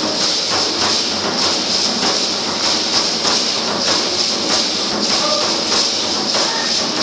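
Matachines dancers shaking hand rattles and stepping in unison on a hard tiled floor, their fringed costumes clattering: a loud, dense, rhythmic rattling with steady beats.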